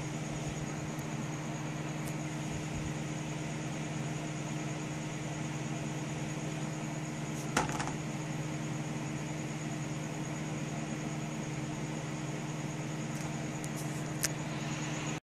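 Steady hum and hiss of a running desktop computer, with a faint high whine and a single short click about halfway through; the sound cuts out abruptly at the very end.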